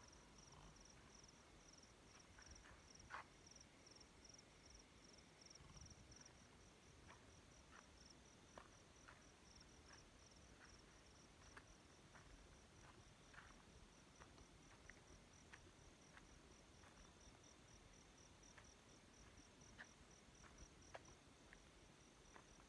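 Faint, high-pitched insect chirping in a steady pulse of about five chirps a second, with scattered faint clicks.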